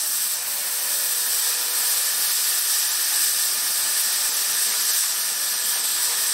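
Welding running in the background: a loud, steady sizzling hiss that comes in abruptly and holds.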